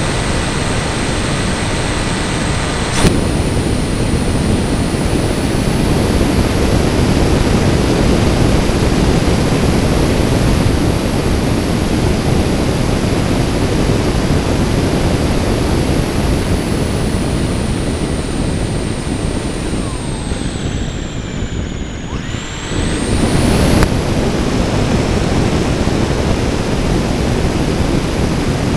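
Wind rushing over the onboard camera of a radio-controlled FPV airplane in flight, with the high, thin whine of its motor. About twenty seconds in, the whine falls in pitch and the rush eases, then both pick up again a couple of seconds later.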